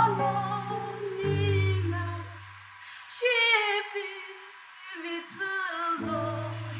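A woman singing a slow prayer song over held accompaniment chords. The chords drop out for a few seconds in the middle while the melody goes on.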